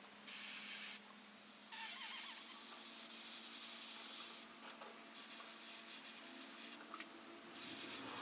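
Airbrush spraying paint in separate bursts of hiss as the trigger is pressed and let go, the longest about three seconds.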